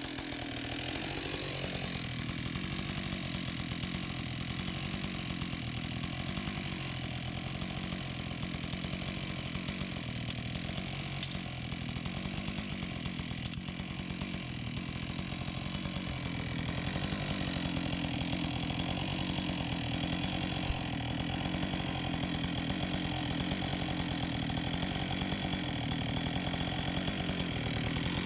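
Husqvarna 576 XP two-stroke chainsaw with a 24-inch bar, running steadily at high revs, getting a little louder a bit past halfway.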